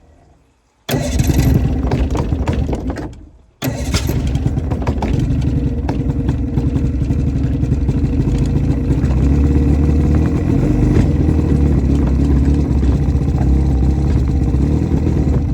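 Outboard motor that has sat unused for a while, restarting: it fires about a second in, runs briefly and dies, then catches again a moment later and keeps running steadily.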